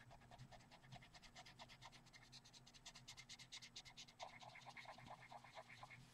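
Faint, quick scratching of a pastel pencil stroked rapidly back and forth on the colouring book's paper, about eight to ten strokes a second.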